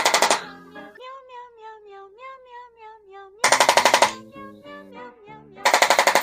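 A chiropractic activator adjusting instrument fires three rapid bursts of clicks, each about half a second long: at the start, about three and a half seconds in, and near the end. Between the first two bursts a cat gives one long, wavering meow.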